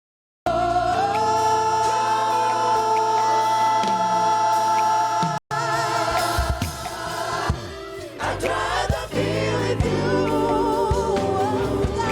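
Gospel choir singing with instrumental backing. It cuts in abruptly after half a second of silence and drops out for an instant about five seconds in.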